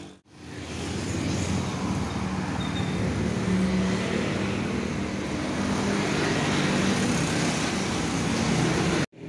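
Small motor scooter engine running as the scooter rolls slowly along the street, heard from the rider's seat with traffic noise around it. It starts suddenly just after the start and cuts off suddenly near the end.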